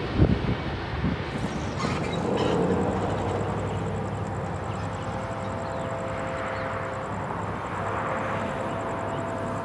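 Distant approaching Amtrak train with P42DC locomotives: a steady low rumble, and from about halfway through a faint, drawn-out horn chord. A brief thump comes right at the start.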